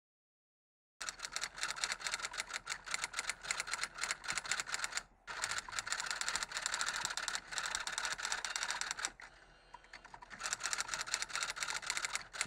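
Typing sound effect: rapid computer-keyboard key clicks. They start about a second in, break off briefly about five seconds in, go softer for about a second around nine to ten seconds, then carry on until just before the end.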